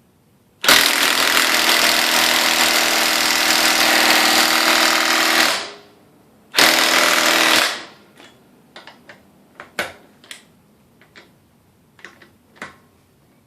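Goodyear 24V cordless 1/2-inch impact wrench hammering on a wheel lug nut for about five seconds, then a second burst of about a second, failing to break the nut loose. Scattered light clicks and knocks follow.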